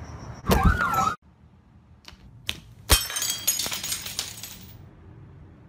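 A short loud burst of noise that cuts off suddenly about a second in. Then, after a couple of faint clicks, glass smashing: a sharp crash followed by about a second and a half of ringing, tinkling shards.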